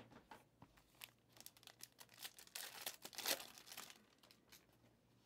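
Plastic-foil wrapper of a Mosaic football card pack crinkling and tearing as it is ripped open and the cards are pulled out: a run of irregular crackles and rustles, busiest about two to three and a half seconds in, then dying away.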